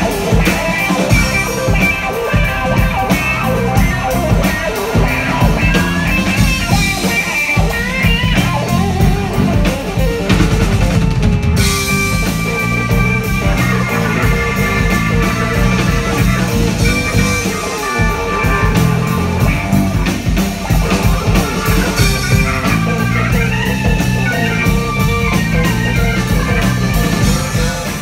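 Live rock band playing: electric guitars over a drum kit, continuous and loud.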